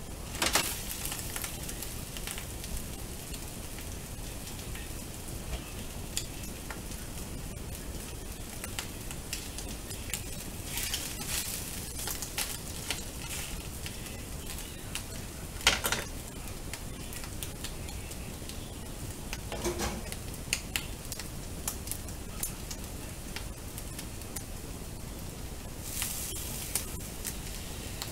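Scrambled egg and cooked white rice frying in a frying pan: a steady sizzle, with a few sharp knocks scattered through, the loudest about half a second in and near the middle.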